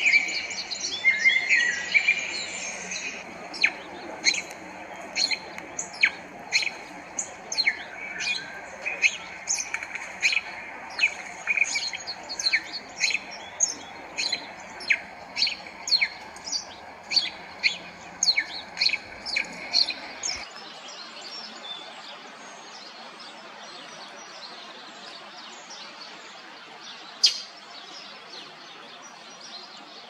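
Male red-winged blackbird calling: a brief burst of song, then a long run of short, sharp chips at about two a second. Past two-thirds of the way through, the sound drops to a quieter background broken by one sharp chirp near the end.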